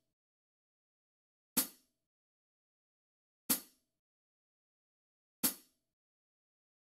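Metronome click track from the notation software's playback: three sharp ticks about two seconds apart, each with a short ring after it.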